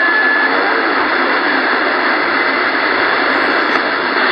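CB radio receiver hiss on the 27 MHz band over long-distance skip, with faint warbling voices buried in the static. A steady high whistle stops about half a second in.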